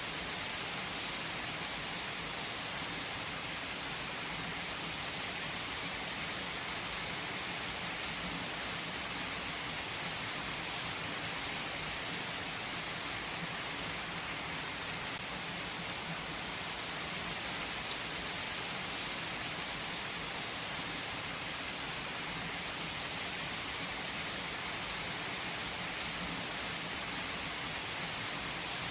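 Heavy rain falling steadily on trees and leaves, an even hiss with a few single drops standing out now and then.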